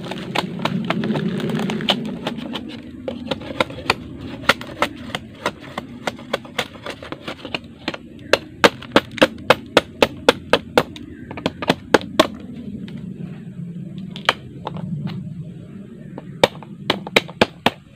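Bolo knife chopping into the nodes of a split bamboo culm laid flat, a string of sharp knocks that comes in quick runs of about two a second for a stretch in the middle. The blade is cutting away the node walls so the opened bamboo lies flat as a slat (sasag).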